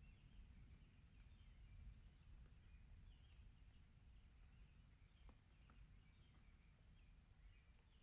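Near silence: a faint steady low rumble with faint, scattered high bird chirps.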